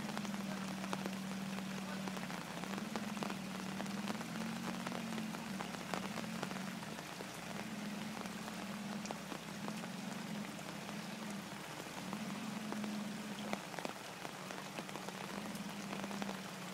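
Steady patter of rain with many small drop ticks, over a low steady hum.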